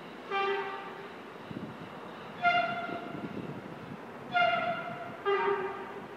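Horn of an approaching CRRC Sifang diesel-electric multiple unit sounding four short blasts, the first and last lower in pitch than the two in between.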